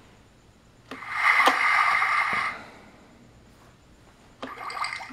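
Battery-powered toy playset's sound effect from its small speaker: a click, then a steady electronic tone lasting about a second and a half, and near the end a second, shorter one cut off by a sharp click.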